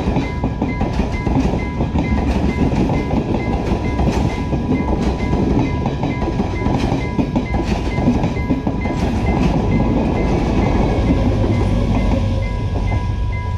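Passenger train carriages passing close by, wheels clattering over the rail joints, with the level crossing's electronic warning tone sounding steadily and beeping about twice a second. The train noise eases near the end as the last carriage clears the crossing.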